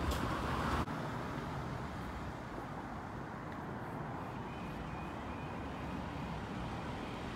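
Cars driving over a level crossing close by. The sound changes suddenly just under a second in, and after that there is steady road traffic noise as a van drives across.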